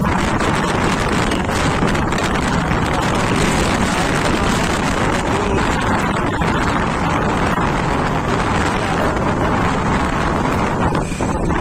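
Steady rush of wind buffeting the microphone of a hand-held phone while riding a two-wheeler, mixed with the vehicle's running engine and road noise.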